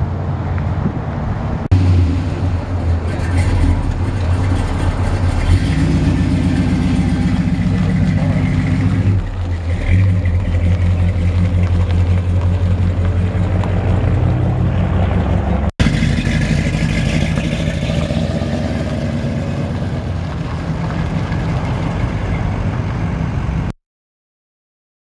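Classic American car engine running with a steady low rumble as the car drives off across the lot, dipping briefly about nine seconds in; the sound cuts off abruptly shortly before the end.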